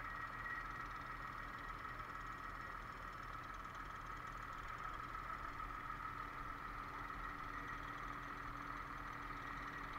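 Digger derrick truck's engine running steadily while its boom holds a power pole.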